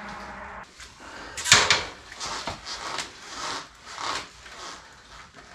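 A series of knocks and clacks, the loudest about one and a half seconds in: someone moving about and climbing onto a parked motorcycle.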